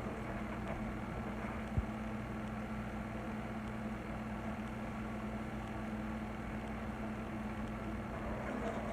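Steady low mechanical hum, like a kitchen appliance or vent fan running, with one short knock about two seconds in.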